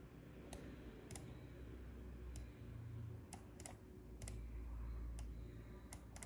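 Scattered, irregular clicks of computer input, about ten in all, a couple in quick pairs, over a low steady hum.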